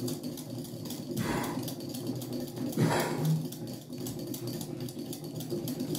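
Hand whisk beating a runny egg, sugar and melted-butter batter in a glass bowl: a quick, steady run of wet swishes and light clicks against the glass.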